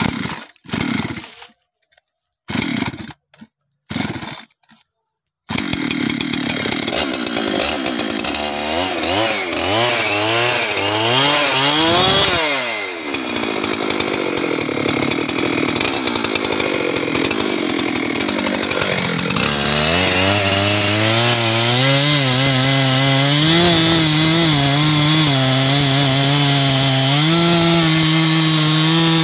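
A few short separate bursts of sound, then a Husqvarna 390 XP two-stroke chainsaw runs from about five seconds in. It revs up and down, the revs dropping sharply once, and is then held at high revs with a wavering pitch as it cuts into a teak trunk.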